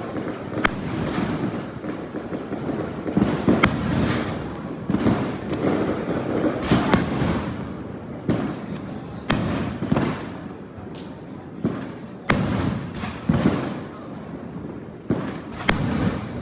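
Fireworks display: a dozen or so sharp bangs at irregular intervals, each trailing off, over a continuous crackling haze.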